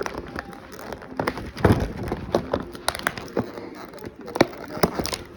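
Hands handling plastic packaging and small diecast figures: irregular crinkling and sharp clicks and taps, with a few louder knocks.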